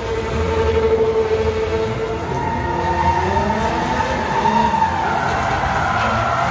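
Stunt cars and a stunt motorcycle drifting in tight circles: engines at high revs and long tyre squeals. The squeal holds one pitch for the first couple of seconds, then slides up and down.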